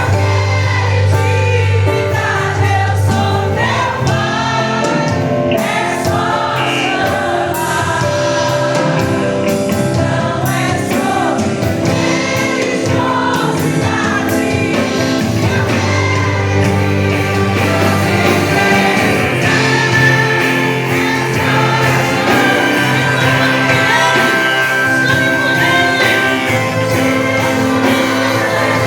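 Gospel music: a choir singing over instrumental backing with a steady bass line.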